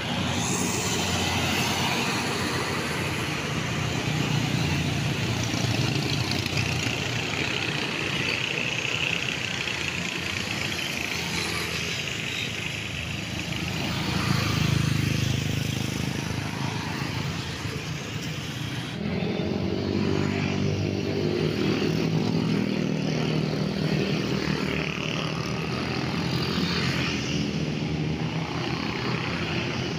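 Motorcycles and cars passing on a town road, a steady wash of small engines and tyre noise. About two-thirds of the way through, the background changes abruptly and a steady engine hum comes to the fore.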